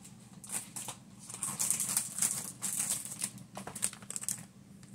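Small jewelry packaging being handled by hand: irregular crinkling and rustling with light clicks.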